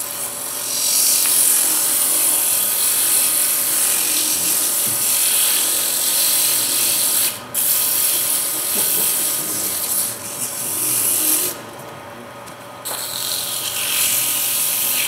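Abrasive paper pressed against a Banksia pod spinning on a wood lathe, a steady rasping hiss. The abrasive is lifted off briefly about halfway through and again for about a second near the end.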